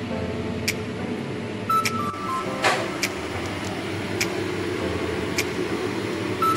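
Steady rushing noise of a large stainless stockpot at a hard rolling boil, under quiet background music with a soft tick about once a second and a short falling melody near the start and the end.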